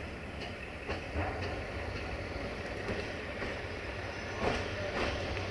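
LDH diesel-hydraulic shunting locomotive's engine running with a steady low hum as it rolls slowly past, with a few sharp clicks and knocks from its wheels over the rail joints.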